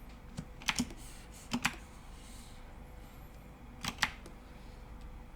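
A handful of computer keyboard keystrokes, sharp clicks that come mostly in quick pairs, over a faint steady room hum.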